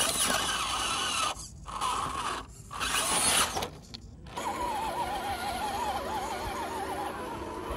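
Scale RC crawler truck's electric motor and gearbox whining in short throttle bursts with brief gaps while it crawls over rock. From about halfway in, a steadier whine whose pitch wavers up and down.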